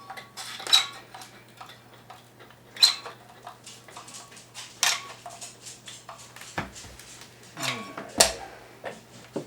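Adhesive gun (caulking-style glue gun) clicking as its trigger is pumped to lay a bead of glue, a sharp click about every two seconds, with scattered lighter clicks and two heavier knocks near the end.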